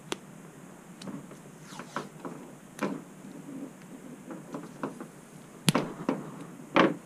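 Electrical tape being pulled off its roll and stretched around a connection, in several short rasping rips. The two loudest come near the end.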